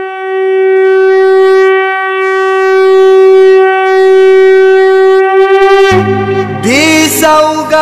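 Music: a wind instrument holds one long, loud note, then about six seconds in a low steady drone comes in and the instrument plays short phrases that bend up and down. This is the opening of a devotional song.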